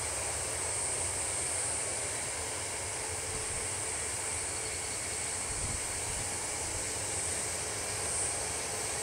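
Twin-engine jet airliner on final approach, its engines a steady rushing hiss.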